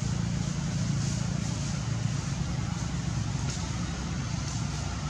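Steady low rumble under an even hiss, with no clear calls or distinct events.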